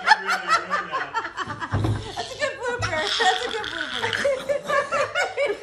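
A woman laughing hard, a quick run of short laughs one after another.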